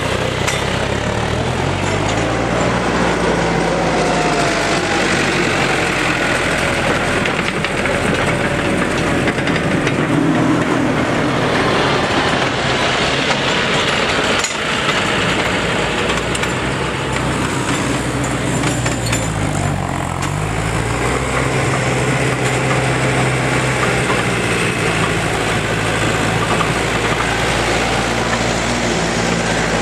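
Diesel farm tractor engines running steadily as tractors work the dirt pulling track and tow the sled and leveler. The engine pitch shifts about two-thirds of the way through, as a tractor passes close.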